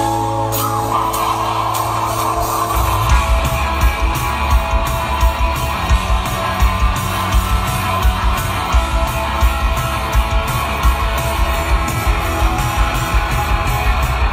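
Rock band playing live through a stage PA: electric guitars hold a sustained chord, then about three seconds in the drums come in with a steady beat and the guitars strum along.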